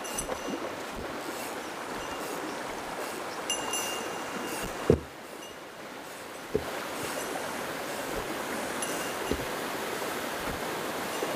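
Mountain stream rushing steadily over rocks, with a few sharp knocks, the loudest about five seconds in, and brief faint high tones.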